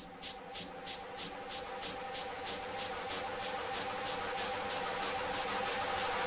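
Cricket chirping at an even pace of about three chirps a second, the chirps blurring as a hiss swells beneath them, over a steady low hum.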